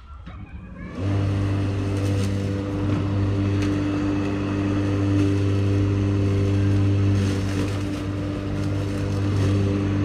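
An engine starts running about a second in and holds a steady, unchanging pitch: a low hum with a stack of overtones.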